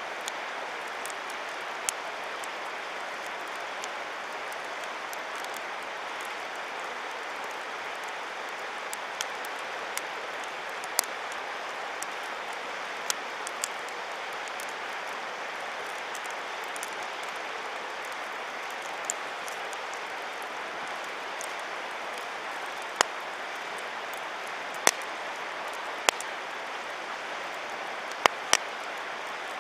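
Wood campfire crackling, with irregular sharp pops that come several loud in quick succession near the end, over a steady rushing of flowing river water.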